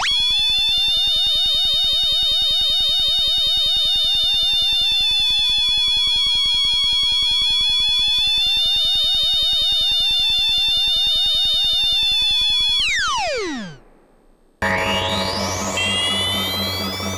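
Analog synthesizer sound effect imitating the Wave Motion Gun: a loud, sustained electronic tone with fast-warbling overtones holds for about thirteen seconds, then dives steeply in pitch and dies away. After a brief gap a new layered synth sound starts, with a rising sweep over steady low tones.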